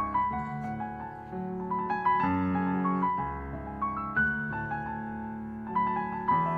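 Piano music: a slow melody of single struck notes over held low chords.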